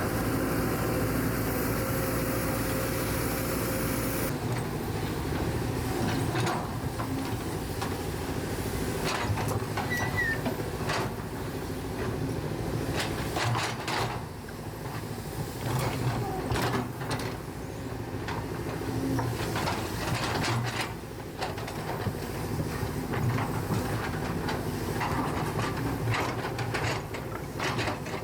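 Sany 240HD excavator's diesel engine running steadily, with repeated irregular knocks and clanks from about a few seconds in, as of the bucket and boom working a load into a dump truck.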